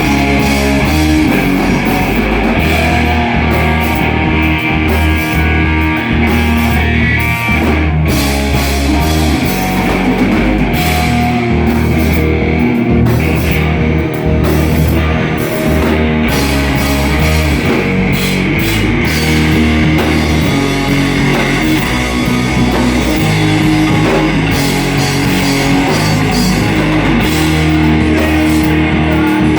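A live rock band playing an instrumental passage: distorted electric guitar, bass and drum kit, heavy and loud, with no vocals.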